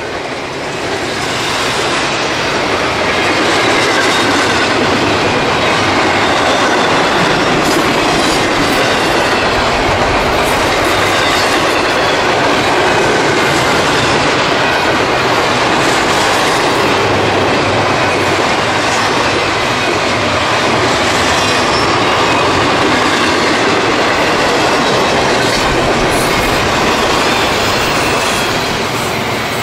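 Train cars rolling past on the rails with a steady clatter of wheels over the rail joints and a light wheel squeal. The sound eases a little near the end.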